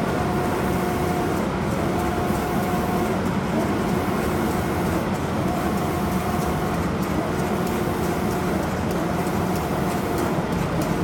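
Automatic cabinet-door spray painting machine running: a steady mechanical hum and rush of air, with a motor whine that sounds for about a second and a half, stops briefly, and comes back again and again.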